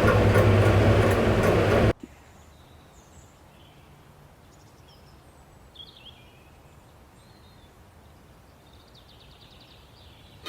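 A loud, steady rumbling noise with a low hum cuts off abruptly about two seconds in. After it, faint scattered bird chirps sound over a quiet background, with a short trill near the end.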